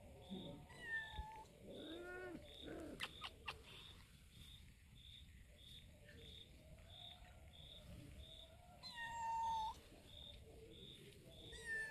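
Cats meowing: a few short high-pitched mews in the first seconds, then one longer, louder meow about nine seconds in and a short one near the end. A faint steady chirping repeats about three times a second underneath.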